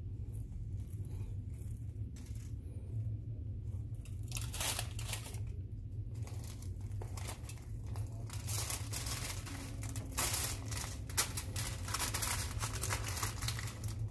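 Aluminium foil and a plastic bag crinkling and rustling as hands handle them, in short bursts that start about four seconds in and come thick and fast in the second half. A steady low hum runs underneath.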